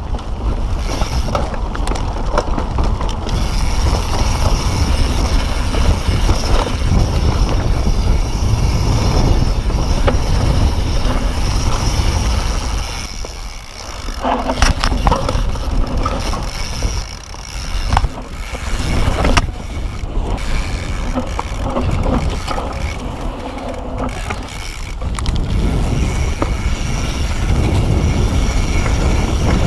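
Mountain bike ridden fast down a rocky forest trail: a steady rush of wind on the camera's microphone and tyres rolling over rock and dirt, with frequent sharp knocks and rattles as the bike hits bumps.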